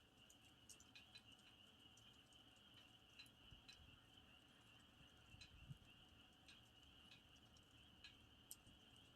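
Faint campfire crackling: irregular sharp pops of burning wood, over a steady high-pitched trill of crickets.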